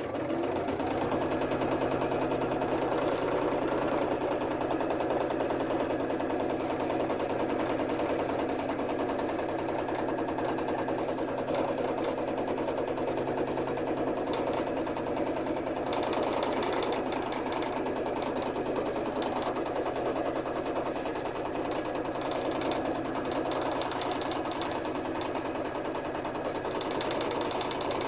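Domestic electric sewing machine running steadily at a fast, even stitch, tacking an appliqué piece down onto fabric.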